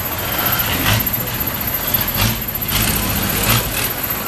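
Long-tail boat's stern-mounted engine running steadily as the boat motors past on the canal.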